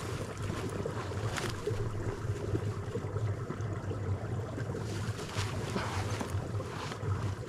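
Footsteps crunching through deep snow, roughly one step a second, over a steady low rumble of wind on the microphone.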